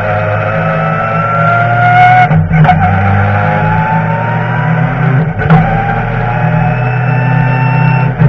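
BMW touring race car's engine, heard from inside the cockpit, accelerating with a rising pitch and cut by two quick upshifts about two and five seconds in.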